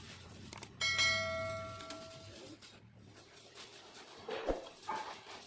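A metal part or tool clanks about a second in and rings out with a bright, bell-like tone that fades over about a second and a half. A duller knock follows near the end.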